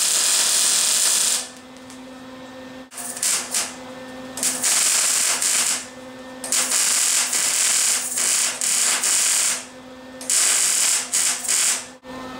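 Electric arc welder welding steel in about five crackling, hissing bursts of one to three seconds each, with a steady hum underneath.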